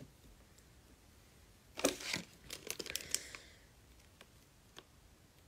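Slime being squeezed and pressed by hand: a faint run of crackling, clicky squelches about two seconds in, lasting about a second and a half.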